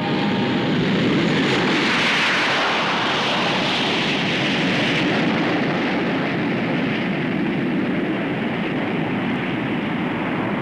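Hawker Sea Hawk jet fighters flying past in a formation display, their Rolls-Royce Nene turbojets making a steady rush of jet noise that is loudest about two to five seconds in and then eases slightly.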